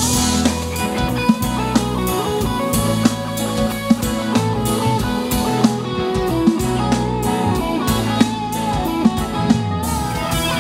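Live funk-rock band playing an instrumental passage: electric guitar lines over bass guitar and a steady drum-kit beat.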